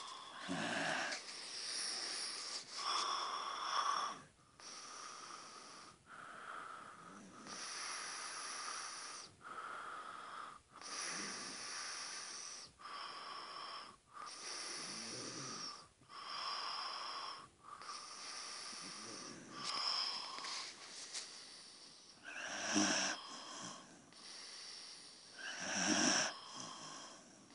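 A sleeper snoring and breathing heavily in slow, repeated breaths, about a dozen of them, each with a high whistling wheeze. The last few breaths are the loudest.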